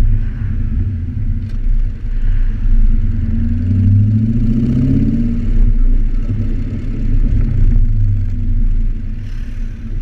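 Audi RS4 exhaust with the pre-catalytic converters and resonator deleted, heard close up at the tailpipe while driving at low speed. The engine note rises in pitch about four seconds in, then eases off.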